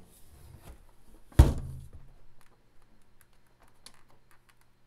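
A single dull thunk about a second and a half in, followed by a faint, steady low hum.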